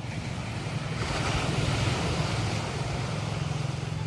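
Ocean surf breaking on a beach: a wave rushes in and swells about a second in, then eases, over a steady low hum.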